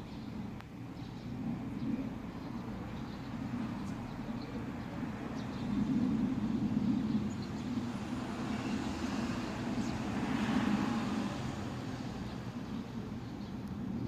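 Steady rumble of road traffic that swells for a few seconds past the middle, as a vehicle passes.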